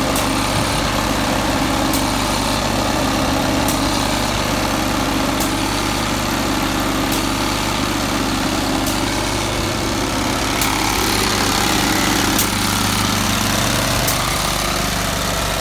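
Petrol engine of a Graco 250 SPS road-striping machine running steadily, with a faint regular tick about every second and three quarters.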